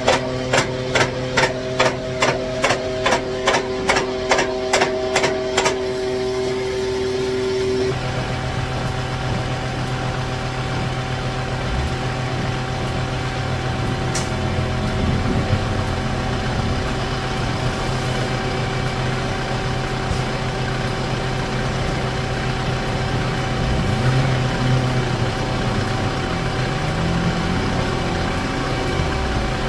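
Car transporter's hydraulics running with a steady hum, with sharp regular clicks about two a second for the first six seconds while a deck is moved. After that a steady engine hum runs on as the car is loaded.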